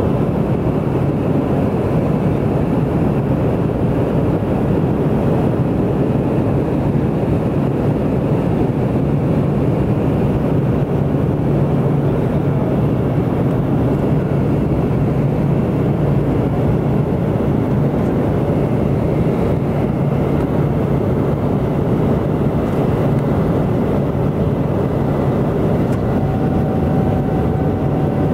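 Steady cabin noise of a small high-wing propeller airplane in flight: engines and propellers running at a constant level with a low hum.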